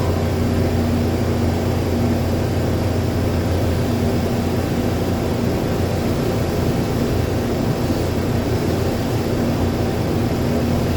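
Steady drone of running industrial machinery, with a constant low hum and a steady tone over a wash of noise, unchanging throughout.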